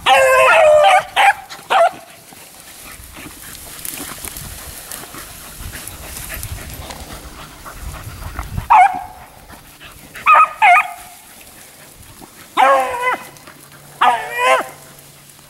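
Beagles baying on a cottontail's scent line. A long bawl comes at the start, with two short bays after it. Short bays return after a lull of several seconds, and two longer drawn-out bawls come near the end as a hound picks up the line again after a check.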